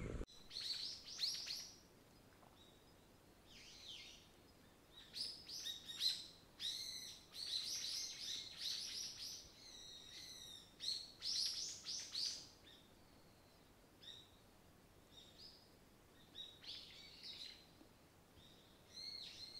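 Small birds chirping and twittering: clusters of short, high calls and quick trills, busiest in the middle and thinning out toward the end.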